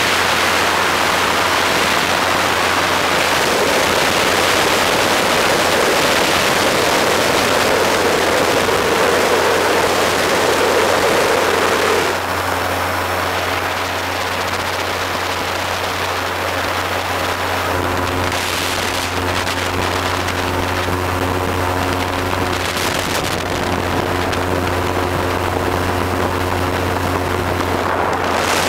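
Wind rushing loudly over the microphone in flight, easing about twelve seconds in, with a steady engine drone underneath throughout.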